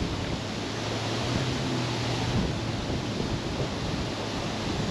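Steady rushing outdoor noise of river water and wind at a stony riverbank, with a faint low steady hum underneath for the first couple of seconds.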